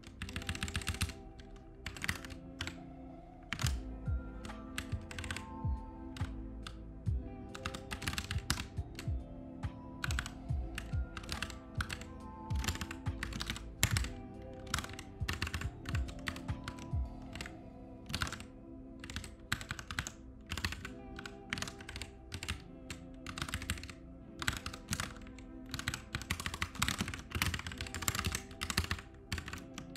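Computer keyboard typing: quick, irregular runs of keystrokes, with repeated key presses, entering Vim commands and code. Background music plays underneath.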